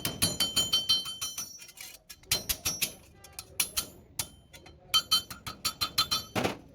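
A hammer tapping rapidly on sheet-metal bodywork, several ringing metallic strikes a second in four bursts with short pauses between.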